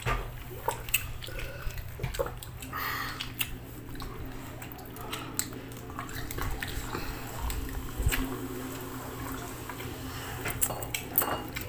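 Close-miked eating sounds: chewing and mouth smacks with many short, sharp clicks, and a soft drink being poured into a glass partway through.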